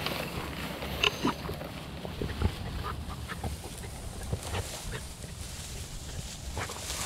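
A hunting dog panting and sniffing hard as it pushes through dry grass, with irregular rustling and crackling of the stalks.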